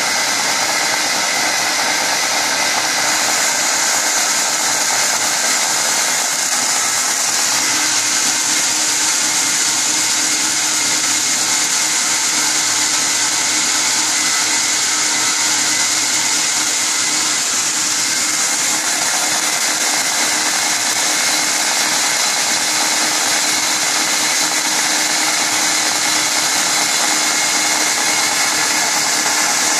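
Homemade belt grinder driven by a 3/4 hp electric motor, running steadily with the sanding belt whirring over its pulleys.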